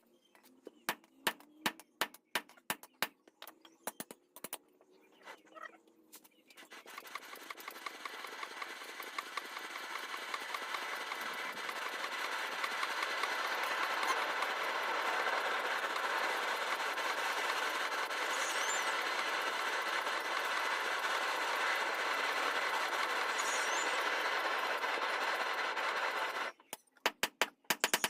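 Metal being struck with a hammer in irregular blows, then a machine in the smithy starts and runs with a fast, steady rattle for about twenty seconds before cutting off abruptly near the end, followed by a few more strikes.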